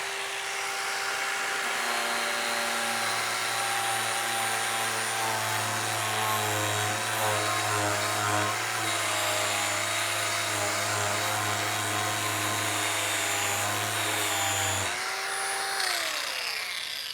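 Electric angle grinder with a flap disc grinding thick body filler off a steel panel: a steady motor whine under a rasping grind. About fifteen seconds in it runs free, and near the end it winds down.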